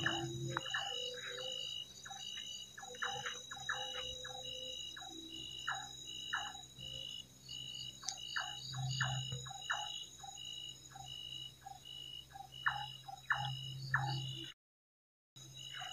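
Night chorus of frogs and insects: a regular pulsing high note repeating a little over once a second, with scattered short chirping calls over a faint low hum. The uploader likens it to something singing with old-time violin bowing. The sound cuts out completely for about a second near the end.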